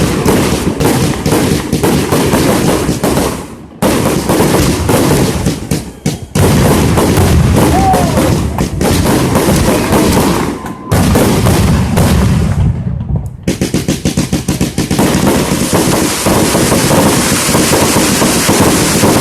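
Fireworks going off in rapid, dense volleys of bangs and crackles, with a few brief lulls.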